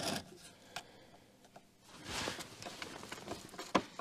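Scattered light clicks and a short rustling scrape from hand tools and parts being handled in a car's engine bay, with quiet gaps between.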